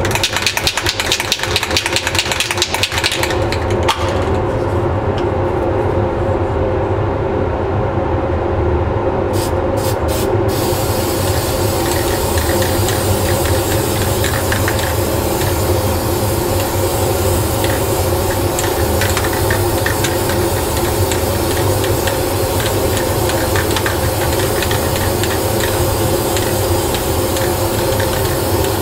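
Spray booth exhaust fan running with a steady hum, under the hiss of an aerosol spray paint can: hissing for the first few seconds, a few short spurts about ten seconds in, then continuous spraying to the end.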